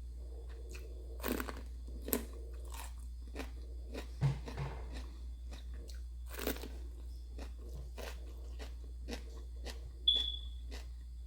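Close-up chewing and biting of crisp fried food, mostly soft clicks with a few louder crunches. Near the end comes a single short ringing clink.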